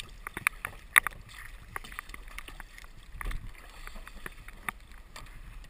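Kayak paddle blades dipping into and lifting out of the water: an uneven string of small splashes and drips, the sharpest about a second in.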